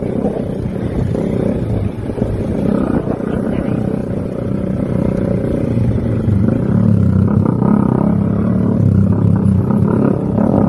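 Motorcycle engine running under way over a rough dirt track, with a steadier low engine hum from about six seconds in.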